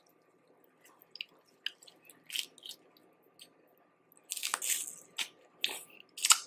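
Eating boiled crawfish: shells cracking and being peeled, with wet squishing and chewing, in scattered short bursts. It is busiest about four and a half seconds in, and the loudest crack comes near the end.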